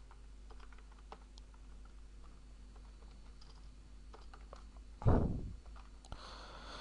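Faint, irregular clicking of typing on a computer keyboard as code is entered. About five seconds in there is one brief, louder burst of noise that fades quickly.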